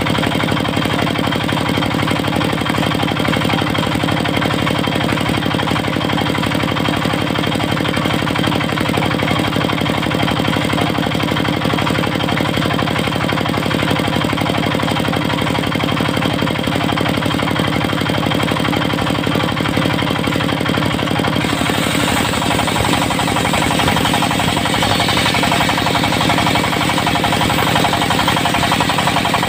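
Diesel engine of a mobile circular sawmill running steadily. About two-thirds of the way through, a higher hiss joins the engine sound.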